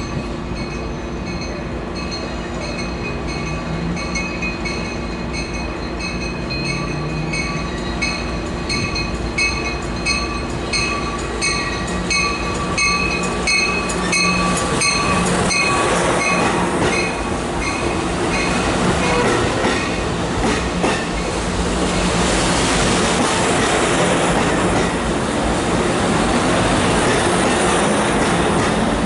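An Amtrak Pacific Surfliner train arriving with its cab car leading, its bell ringing in steady repeated strikes through the first half while the wheels squeal on the rails. In the second half the bilevel cars roll past, getting louder, with wheels clicking over the rail joints.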